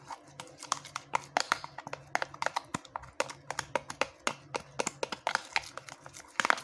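A metal spoon stirring a wet mix of egg yolk and tamarind in a plastic container: quick, irregular clicks and knocks of the spoon against the plastic walls and bottom. A faint steady low hum runs underneath.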